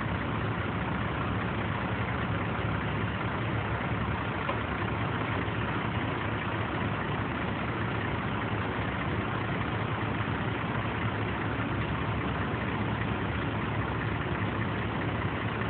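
Caterpillar 3126 inline-six diesel of a GMC C8500 truck running steadily, powering the truck-mounted crane as its boom is raised.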